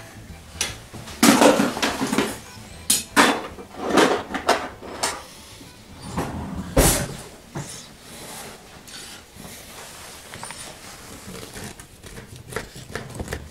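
Kitchen cutlery drawer and metal cutlery clattering as a knife is taken out: a run of sharp knocks and clinks over the first seven seconds, the loudest around one and a half seconds in and near seven seconds, then much quieter.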